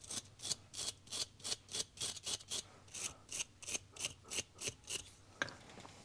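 A small wire brush scrubs corrosion off the male metal terminals of a wiring connector in quick, even back-and-forth strokes, about four a second. The scrubbing stops about five seconds in, followed by a few faint clicks as the connector is handled.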